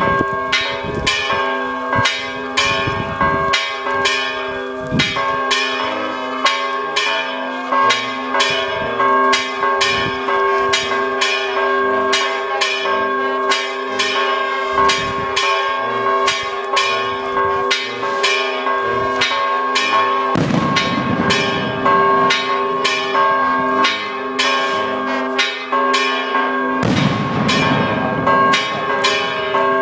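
Church bells ringing rapidly, about two to three strikes a second over their lingering tones, with two rougher, noisier stretches about two-thirds of the way through and near the end.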